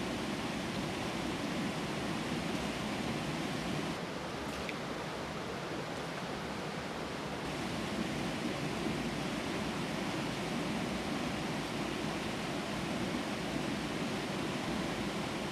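Steady rushing of a river's flowing water, an even hiss with no distinct splashes.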